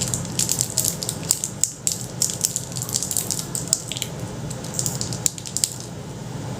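Foam clay being pressed and worked by hand: irregular small crackling, sticky clicks that stop about six seconds in, over a steady low hum.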